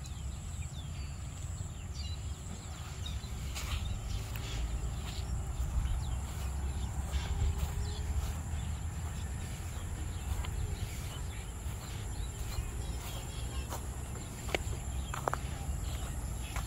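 A steady high-pitched insect drone over a constant low rumble, with scattered light clicks.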